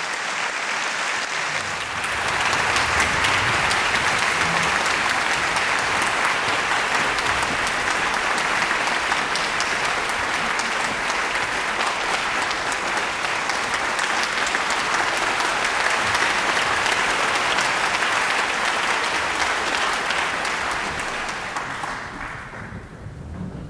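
Concert-hall audience applauding, swelling over the first couple of seconds, holding steady, then dying away near the end.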